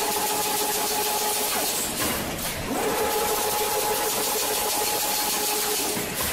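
Chain-link fence weaving machine running over a steady mechanical hiss. Its motor gives a steady whine that cuts out about one and a half seconds in, then rises in pitch as it spins back up about a second later.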